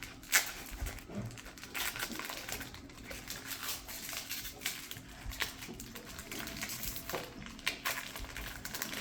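A trading card pack's wrapper rustling and crinkling as it is torn open, with irregular scratchy handling noises and light taps of the cards.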